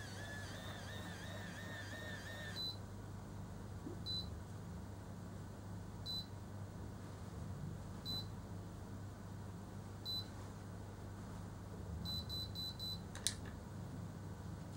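Automatic hair curler working a section of hair. It makes a wavering whir for about two and a half seconds as the hair is drawn in, then gives a single short beep about every two seconds while the curl sets. Four quick beeps near the end signal that the curl is ready, followed by a sharp click as the curler is opened and released.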